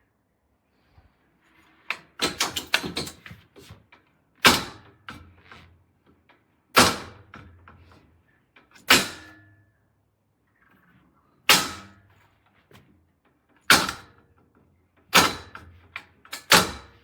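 Metal baby gate clanking: about nine sharp knocks, roughly two seconds apart, several followed by a brief rattle.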